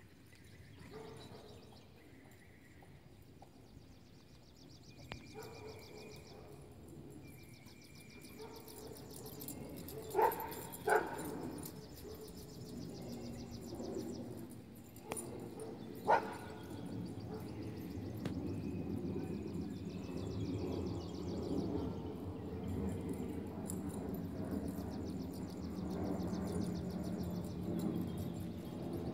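A dog barking, three short single barks about ten, eleven and sixteen seconds in, over a low rustling background that grows louder in the second half.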